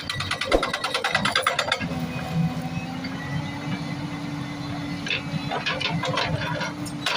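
Heavy construction machine's engine running steadily, after a second or two of rapid, even hammering at the start.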